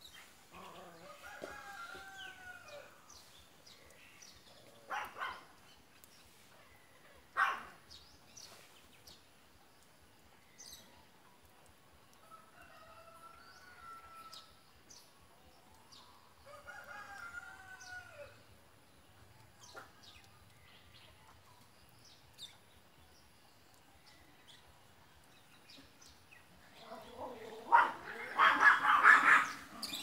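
Roosters crowing: faint crows at several points, then one loud crow near the end. Two sharp clicks come in between.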